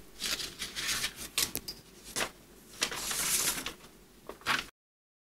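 Paper plate handled and slid across a tabletop: several short scrapes and rustles, with a longer rub about three seconds in.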